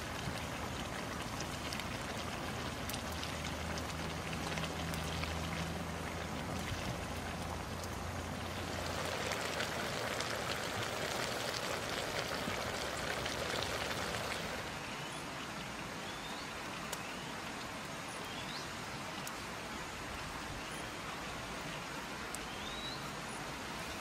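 Wood fire crackling under a wok, with food sizzling and steaming in the wok, loudest for several seconds in the middle. Short chirps run through the second half.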